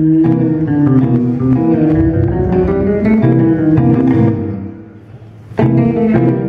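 Live instrumental music from two electric bass guitars playing melodic lines through amplifiers. A note slides upward about two to three seconds in. The playing drops away briefly near five seconds, then comes back in loud and all at once.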